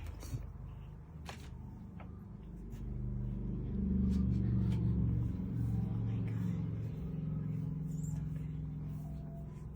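A low, steady, engine-like rumble that swells about three seconds in and slowly eases off, with a few faint clicks.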